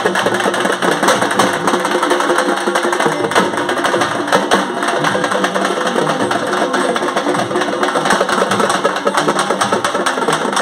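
Music with loud, fast, continuous drumming and percussion.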